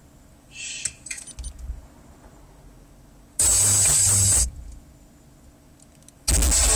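Car stereo with a Fusion subwoofer and FLI speakers playing music in loud, bass-heavy bursts: about a second of music starts three and a half seconds in and cuts off, then the music comes back loud near the end. Light clicks of the head unit's buttons being pressed come earlier.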